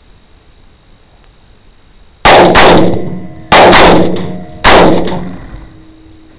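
Two rifles, a 300 Blackout and a 6.8 SPC, each firing three times: six loud rifle shots in three quick pairs about a second apart, every pair followed by a ringing echo that dies away.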